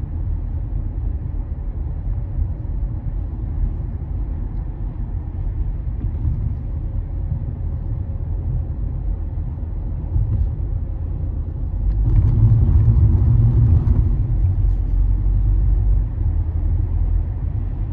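Steady low rumble of a car driving at street speed, tyre and engine noise, swelling louder for about two seconds a little past the middle.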